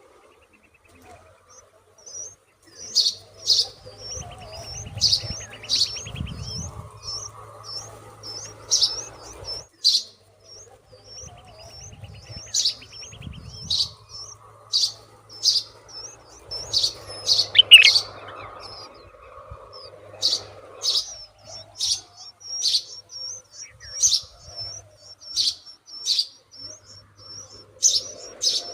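Small birds chirping. Short, high chirps repeat about twice a second from a few seconds in, with a louder rising call around the middle.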